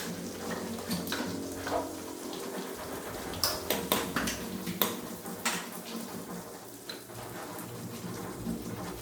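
Scattered light metallic clinks and taps, as of small metal parts and hand tools being handled and set down, a few sharper ones in the middle.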